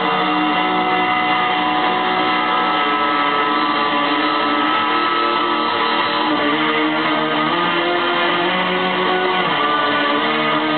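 Black metal played back from a lathe-cut record on a turntable: a dense, unbroken wall of guitar.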